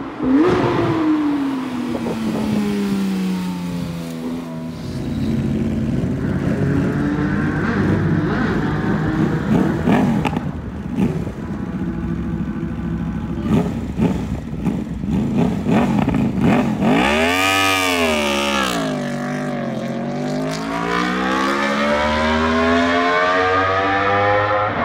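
High-performance sports car and sportbike engines revving hard and accelerating past. The pitch slides down at the start, climbs and falls through the gears, rises sharply and drops away again about two-thirds of the way through, then climbs steadily near the end.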